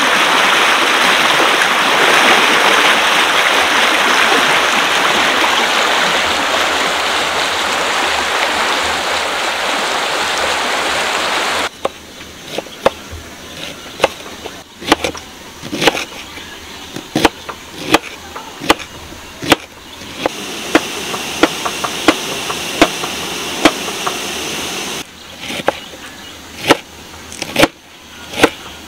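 Loud, steady rushing of a river or stream, which cuts off suddenly about twelve seconds in. A quick run of sharp taps follows, about two a second, with a softer rushing coming back for a few seconds partway through.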